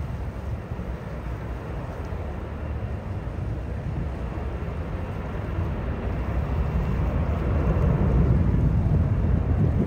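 Airbus A330 jet engines at takeoff power, a low rumble growing steadily louder as the airliner rolls down the runway.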